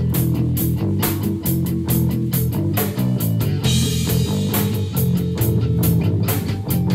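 Rock music: guitar and bass over a steady drum beat, with a cymbal crash a little past halfway.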